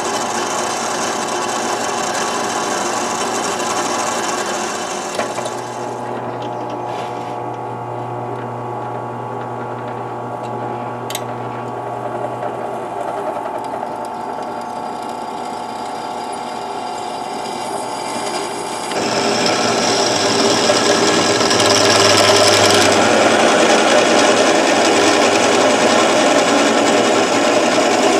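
Power drill running, its bit boring bolt holes through a metal flange plate clamped in a vise, with a steady motor hum under the cutting noise. About two-thirds of the way in the cutting grows louder and harsher.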